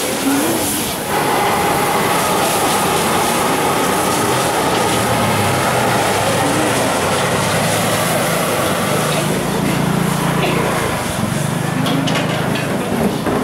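Wok cooking over high-pressure gas burners at a street stall: a steady, loud roar of jet flames mixed with food sizzling in the wok.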